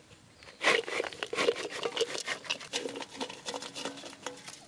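Cooking spoon scraping and knocking against a large cooking pot as fried chicken is stirred into a big batch of noodles: an irregular run of quick scrapes and clacks beginning about a second in.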